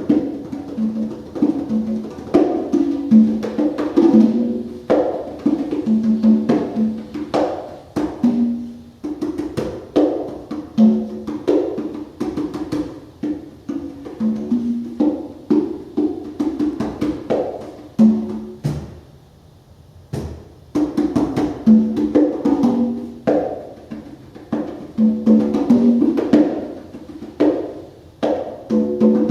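Live free-improvised music led by hand-struck conga drums in an irregular, shifting pattern of short pitched strokes. The playing drops out briefly about two-thirds through, then resumes.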